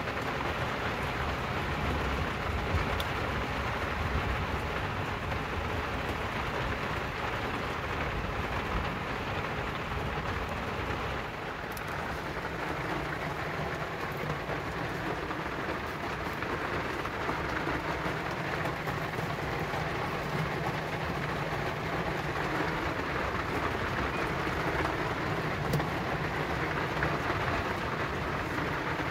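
Heavy rain falling hard on the roof of a camper van, heard from inside as a steady hiss with no break.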